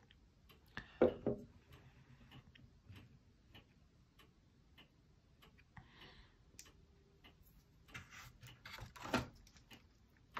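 Light taps and clicks of small model parts being handled and pushed into place, with a couple of louder knocks about a second in and another near the end.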